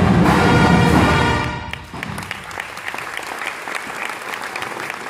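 A marching band's brass and percussion end a piece on a held chord that cuts off about a second and a half in, followed by audience applause.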